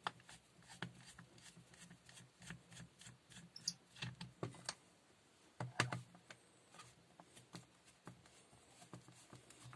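Light clicks and knocks of a cordless drill's hard plastic housing being handled and pressed in the hands, a few sharper taps among many faint ones.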